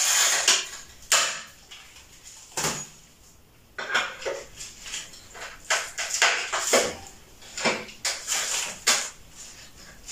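Thick ceramic tile being broken away piece by piece with large tile-breaking pliers: a series of irregular sharp crunches and clinks of ceramic, with a short pause about 2 to 4 seconds in.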